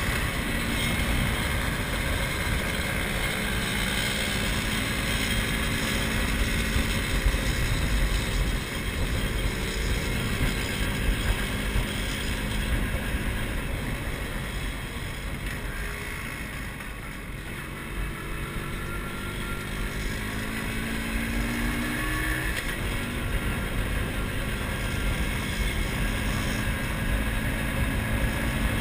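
Motorcycle engine running while riding, heard from the handlebars with wind rushing over the microphone; the engine note climbs in pitch several times as it speeds up.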